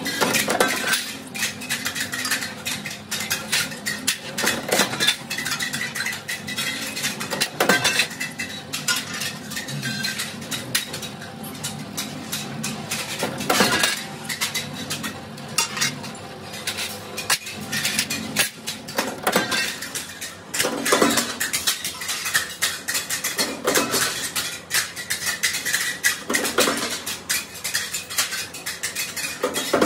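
Steel chaff-cutter blade blanks clanking against each other and against the press die as they are handled and stacked, with a louder metallic clank every few seconds, over a steady machine hum from the press.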